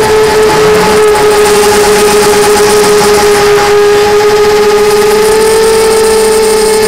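FPV drone's electric motors and propellers whining steadily, heard from the onboard camera, the pitch dipping slightly early on and rising a little about five seconds in.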